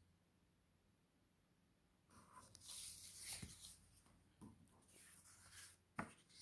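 Sheets of drawing paper rustling softly as they are handled and swapped by hand, after about two seconds of near silence, ending in a short tap about six seconds in.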